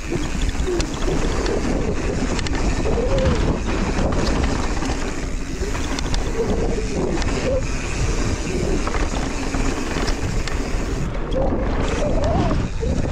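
Mountain bike descending a dirt downhill trail: wind rushing over the camera microphone, over steady tyre noise on dirt and gravel. Scattered clicks and rattles come from the bike over the bumps.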